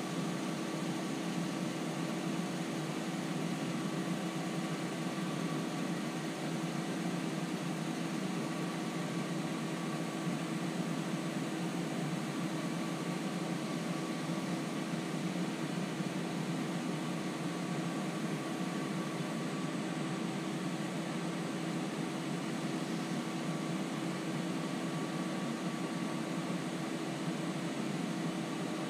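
Wood lathe running steadily at high speed, a rag held against the spinning turned wood to burn in friction polish. A constant whir with a steady hum and no change in speed.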